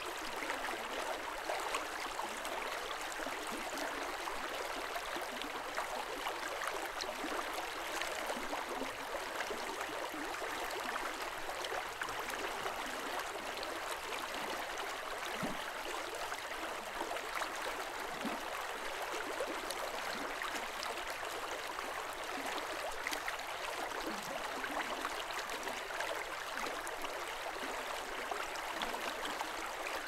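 Snowmelt mountain stream flowing: an even, continuous rush of water with small, scattered splashes.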